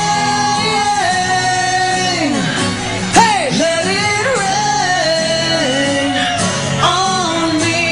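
A man singing a pop ballad into a microphone over musical accompaniment. A long held note falls away about two seconds in, followed by bending, sliding sung phrases, with one sudden loud accent about three seconds in.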